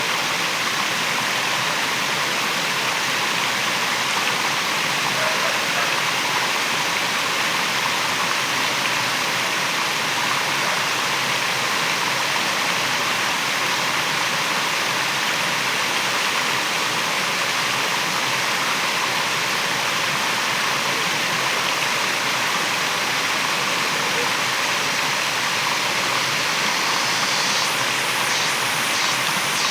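Waterfall: a steady, even rush of falling water, with a faint rapid flutter joining high up near the end.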